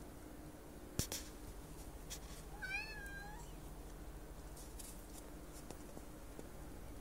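Domestic cat giving one short meow about three seconds in, its pitch rising and falling. A single sharp click comes about a second in, louder than the meow, and a few faint clicks follow later.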